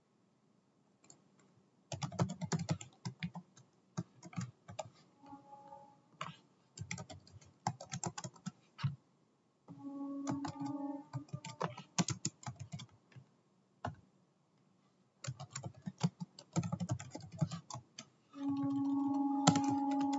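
Typing on a computer keyboard: quick runs of key clicks in several bursts with short pauses between them. Near the end there is a steady low hum.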